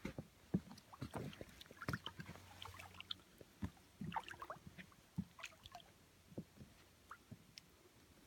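Water splashing and sloshing in small, irregular splashes and knocks, several a second.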